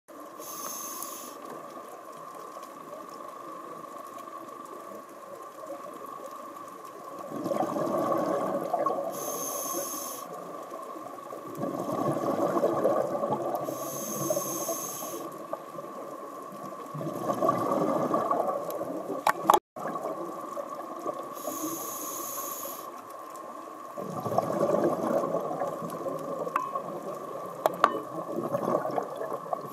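Scuba diver breathing through a regulator, heard underwater: four long, burbling rushes of exhaled bubbles, each followed by a short hiss as the demand valve delivers the next breath. A faint steady whine runs underneath.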